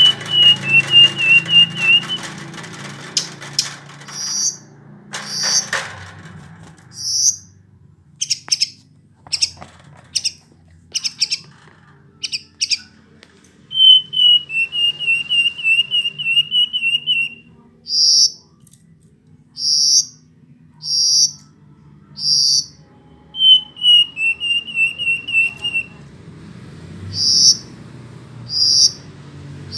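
Verditer flycatcher singing: three rapid, wavering trills of 2 to 4 seconds each, with runs of short, sharp, high notes about once a second between them.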